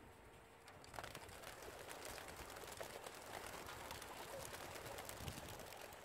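A flock of racing pigeons bursting out of transport crates and taking off, a dense clatter of flapping wings starting about a second in.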